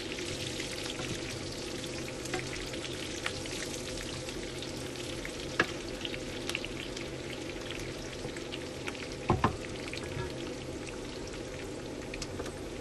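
Pork belly pieces sizzling in hot oil as they are stir-fried with garlic and onion in a pan, a steady crackle full of small pops. A few sharp knocks of the stirring utensil against the pan, the loudest pair about nine seconds in.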